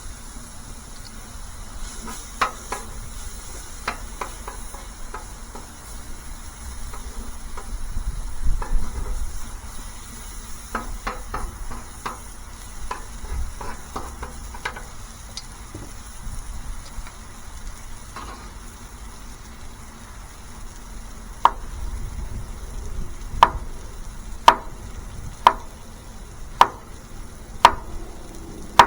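Food sizzling on a griddle, with scattered clicks and scrapes of utensils against it. In the last third, sharp clicks come about once a second.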